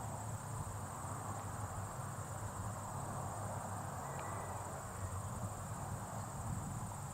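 Insects chirring outdoors: a steady, finely pulsing high-pitched trill, with a low steady hum underneath.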